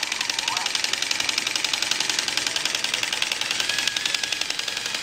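LEGO motor-driven pneumatic compressor running, its pump pistons clattering at a fast, even rate as it pumps air into the tank.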